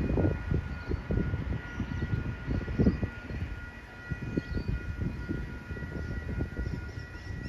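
Wind buffeting the microphone in uneven gusts, with a steady high-pitched whine of several tones that comes in suddenly at the start and holds on, as a tram approaches in the distance.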